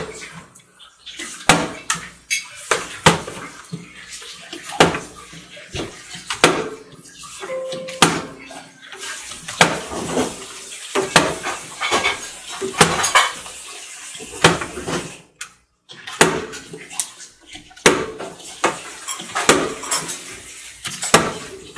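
Plastic twisty-puzzle cubes clacking and knocking as they are set down one on another into a tower on a glass tabletop: many irregular sharp clicks, some in quick runs, with a short pause a little after the middle.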